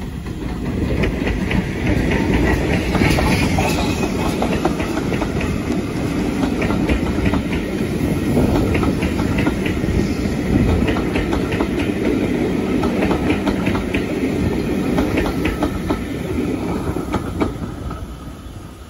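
Heritage steam train's coaches running past on the adjacent track: a steady rumble of wheels with rapid clickety-clack over the rail joints. It fades near the end as the last coach draws away.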